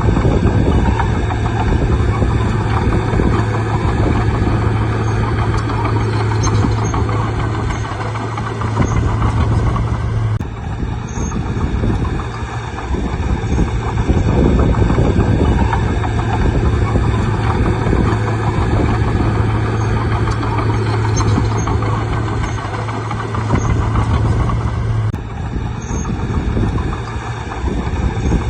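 Bulldozer's diesel engine running steadily with a deep hum, working on and on. The hum drops out briefly about ten seconds in and again near the end.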